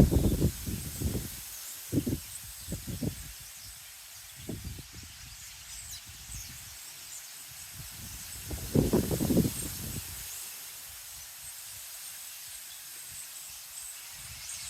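Wind buffeting the microphone in gusts, strongest at the start, a couple of seconds in and again about nine seconds in, over a steady hiss. Faint, high bird chirps come through now and then.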